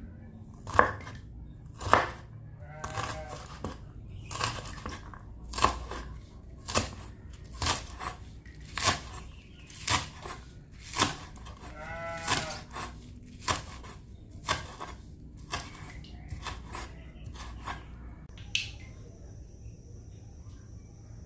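Food being chopped with a knife on a cutting board: about twenty separate knocks, roughly one a second, stopping about three-quarters of the way through.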